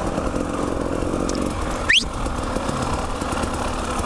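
Dirt bike engine running steadily at trail-riding speed, heard up close from the rider's own bike, with one brief, sharp rising squeak about two seconds in.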